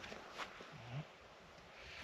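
Faint wind rumble on the microphone, with a short sharp click about half a second in and a brief low hum from a person's voice near the one-second mark.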